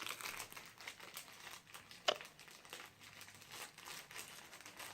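Plastic packaging crinkling and rustling as it is handled, with scattered light clicks and one sharper click about two seconds in.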